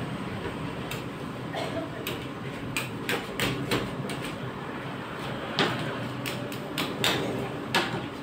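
Metal spatulas scraping and tapping on the frozen steel plate of a rolled ice cream machine as chocolate ice cream is spread and chopped across it, in irregular scrapes and clicks with a few louder strokes, over a steady low hum.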